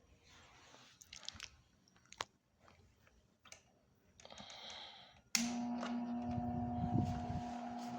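A few faint clicks and handling knocks, then about five seconds in a Ventisol VOM 50 Steel 50 cm desk fan switches on with a click and its motor runs with a steady hum, with a low rumble underneath.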